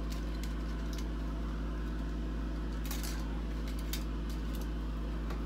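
Bathroom exhaust fan running with a steady low hum, with a few light metallic clicks and scrapes as the fan's cover and springs are handled.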